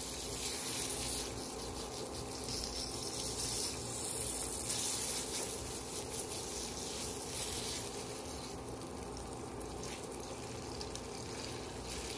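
Chicken longganisa frying in a thin layer of oil, giving a steady sizzle, while a wooden spatula scrapes the pan and chops the sausage into pieces. A low steady hum runs underneath.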